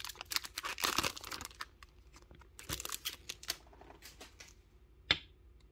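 Foil wrapper of a Pokémon trading-card booster pack crinkling as it is torn open and the cards are slid out, busiest in the first second and a half and sparser after. One sharp click near the end.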